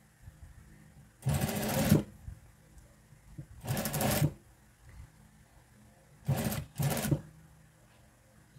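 Juki industrial sewing machine stitching in four short bursts, each under a second, the last two close together, with pauses between as the fabric is repositioned.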